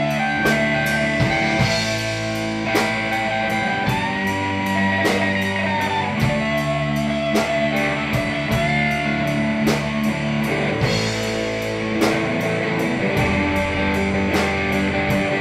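Live rock band playing an instrumental passage: an Ibanez electric guitar plays a lead line of sustained, bent notes over low bass notes and a steady drum kit beat.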